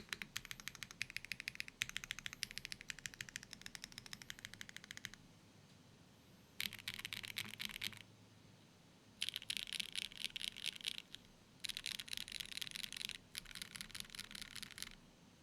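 Fast typing on an Elite60 mechanical keyboard with HMX Xinhai switches in an O-ring-mounted aluminium plate, no foam, and GMK keycaps: a quick run of key clacks, a pause of about a second and a half, then four short bursts of rapid keystrokes.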